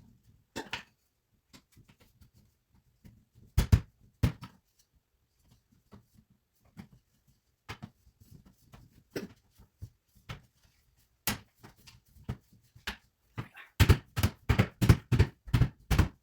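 Wooden parts of a natural-wood plant stand knocking and clicking as they are handled and fitted together: scattered light clicks, two loud knocks about four seconds in, and a quick run of knocks, about four a second, near the end.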